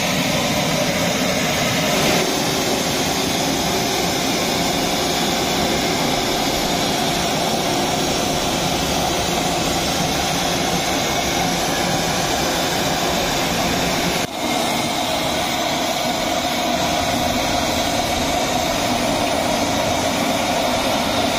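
Pressurised steam blasting out of the vent pipe of a velvet-fabric steaming drum: a loud, steady rushing hiss, with one brief dip about two-thirds of the way through.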